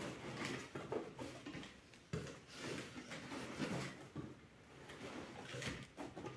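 Cardboard and packing material rustling and scraping as a boxed toy is worked out of a cardboard shipping carton by hand, with a few short knocks.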